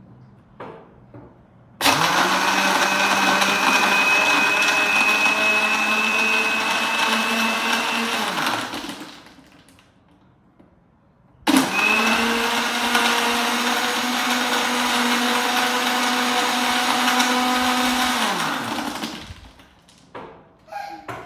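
Countertop blender mixing a chocolate milkshake in two runs of about seven seconds each, with a pause of about three seconds between. Each run starts abruptly, runs steadily and winds down with a falling hum as the motor stops. A few light knocks of the jar being handled come before the first run and after the second.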